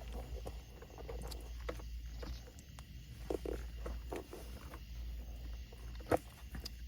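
Scattered light clicks and knocks of plastic interior trim being handled as the shifter boot assembly is worked free, with one sharper knock about six seconds in.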